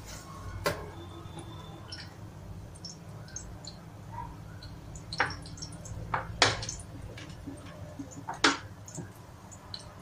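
Hot oil crackling around a dough patty shallow-frying in a kadhai: scattered sharp pops and small faint ticks, the loudest about half a second, five, six and a half and eight and a half seconds in.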